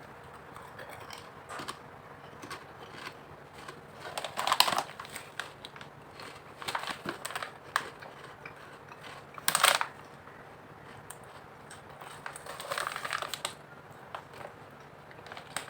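Wavy crab-curry potato chips being eaten: irregular bursts of crisp crunching and crinkling, the loudest about ten seconds in.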